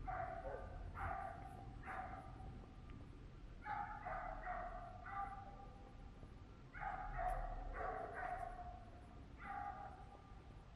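A dog barking: several short barks in runs of a few at a time, with pauses between the runs.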